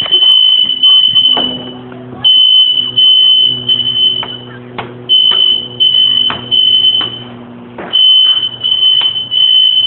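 Building fire alarm sounding a piercing high beep in the three-beep evacuation pattern: three beeps of about half a second, a pause of about a second, over and over. A low hum sits under the beeps.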